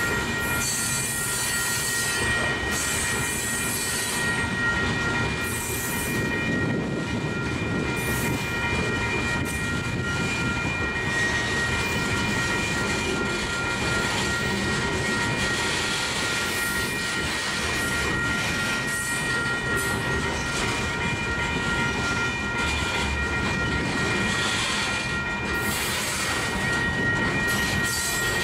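Long freight train of covered hopper cars rolling past: a steady rumble and clatter of wheels on rail, with a thin, steady high-pitched ringing tone held over it throughout.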